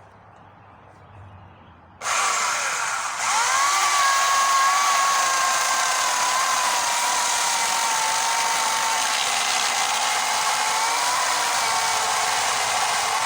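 Wen 12-amp corded electric chainsaw with an 18-inch bar and chain, switched on about two seconds in. Its motor whines up to speed and then runs steadily, its pitch sagging slightly as it cuts into a hard pecan stump.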